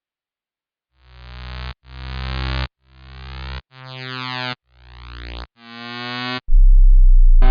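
Synthesizer music: six separate notes, each swelling in loudness for just under a second and some with a sweeping, phasing effect, then a loud, deep bass note near the end.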